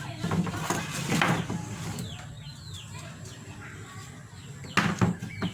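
A few clusters of sharp knocks and clatters, one near the start and another near the end, over birds chirping in short falling calls and a low steady hum.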